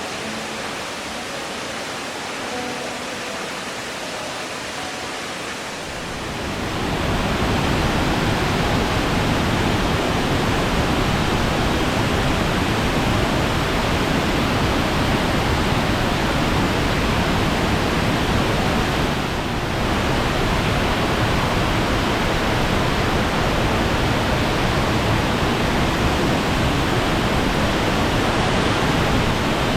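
Waterfall roar: a steady rush of falling water. For the first few seconds it is quieter, under fading background-music notes; about six seconds in it grows much louder and fuller and then holds steady, with a brief dip near twenty seconds.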